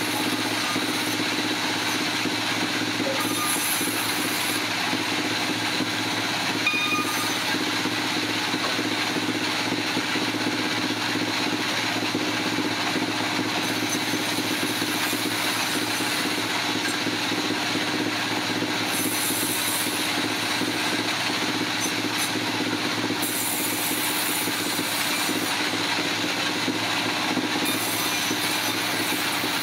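Sawmill machinery running: a steady mechanical din with a constant hum and a few brief passages of sharper high hiss.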